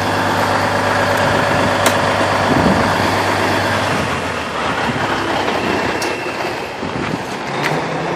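Tanker truck's diesel engine idling steadily, with a couple of sharp clicks.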